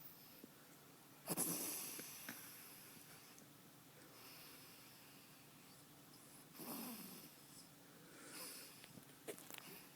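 Snoring in sleep: a loud snore about a second in that fades over a second, a second snore near seven seconds, and a fainter one after it, with a few small clicks near the end.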